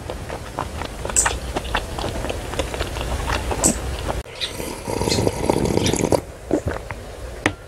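Close-up eating sounds: chewing with many small wet clicks. About four seconds in, the seaweed soup is drunk from the bowl, with sipping and swallowing for about two seconds, then the chewing goes on more quietly.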